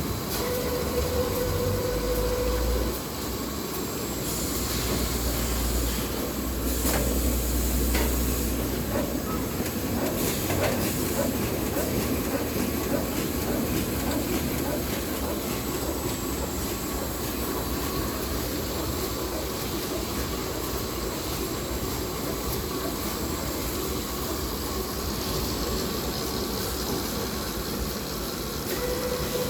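Automatic toilet paper band saw cutting machine running: a steady mechanical clatter and rumble, with a steady hum in the first few seconds and again at the very end, and a few sharp clicks about 7 to 11 seconds in.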